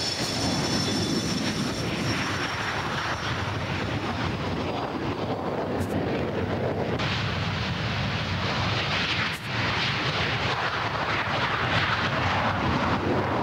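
Hawker Hunter's Rolls-Royce Avon turbojet on a runway roll: a steady jet roar, with a high whine that fades over the first few seconds and a brighter roar from about seven seconds in.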